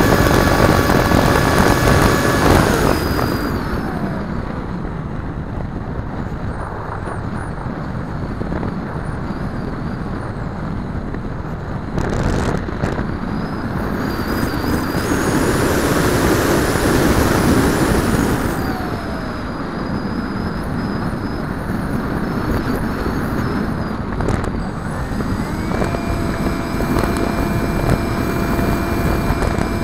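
Bixler 2 RC plane's electric motor and propeller, heard from the onboard camera with wind rushing over the airframe. The motor whine drops away about two and a half seconds in, leaving mostly wind noise that swells around the middle, then comes back as a steady whine near the end.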